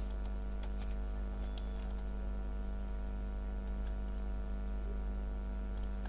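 Steady electrical mains hum from the recording setup, with a few faint clicks of computer input, mostly in the first two seconds.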